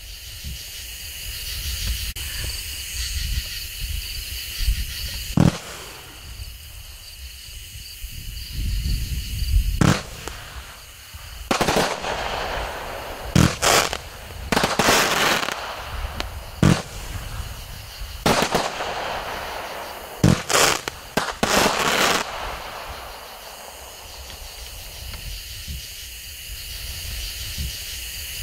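A 200-gram consumer firework cake firing its shots: about a dozen sharp reports at uneven intervals, the first about five seconds in and most bunched between about ten and twenty-two seconds, with hissing from the glitter and time-rain effects between the bangs.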